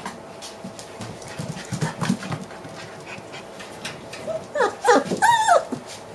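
Six-week-old puppies yelping: a quick run of four or five short, high yelps that bend up and down in pitch about four seconds in, the last one the loudest and longest.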